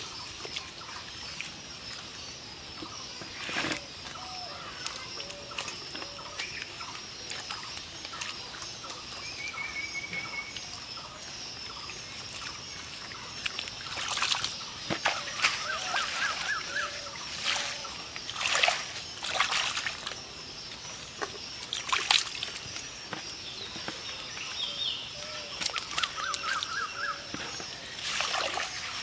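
Hands sloshing and slapping through wet mud and shallow muddy water while groping for fish, with a sudden splash about 4 seconds in and more frequent splashes through the second half.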